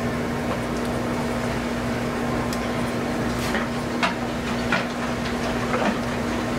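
Steady machine hum with a constant low tone, like a room fan or heater, with a few soft clicks and rustles as puppies are handled on a blanket.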